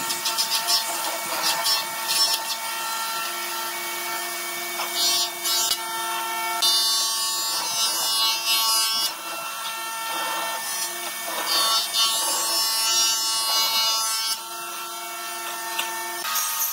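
Hollow chisel mortiser running with a steady motor hum while its chisel is plunged into a wooden beam again and again, each cut a rasping burst of chipping wood. The hum drops out near the end.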